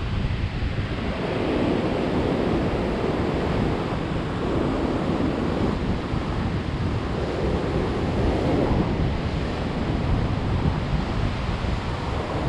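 Ocean surf breaking and washing up the beach, rising in repeated surges every few seconds, with wind buffeting the microphone as a low rumble.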